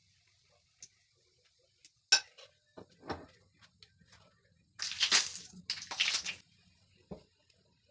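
Kitchen utensil sounds: a sharp clink about two seconds in as a metal spoon is set down in the glass batter bowl, then two short noisy bursts around five and six seconds as a spatula slides under and turns the mini pancakes in the nonstick frying pan.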